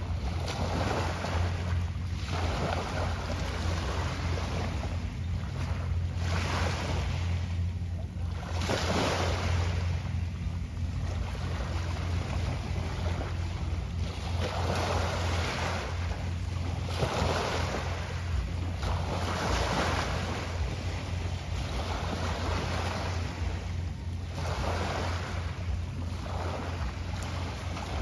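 Small waves washing in and out every second or two, over a steady low rumble.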